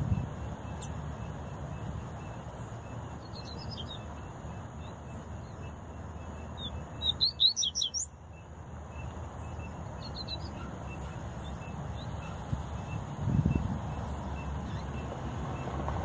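Double-collared seedeater chirping: a few scattered short high chirps, then a quick burst of rising high notes about seven seconds in, the loudest sound. A low rumble runs underneath and swells briefly near the end.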